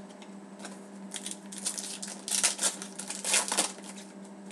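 Foil wrapper of a hockey card pack being torn open and crinkled by hand, a run of sharp crinkling rustles starting about a second in.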